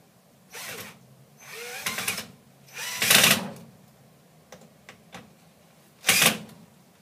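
Power drill driving screws through a rubber pad into a trowel, in four short bursts, the loudest about three seconds in and near the end.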